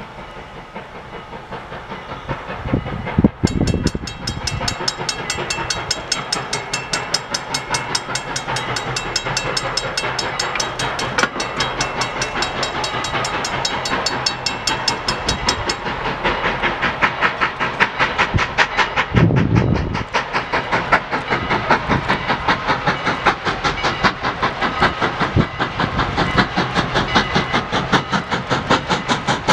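Steam locomotives working hard on approach, led by Norfolk & Western M-class 4-8-0 #475. Their exhaust beats come in a rapid, even rhythm that grows louder as they near. A heavier low rush comes about three seconds in and again near nineteen seconds.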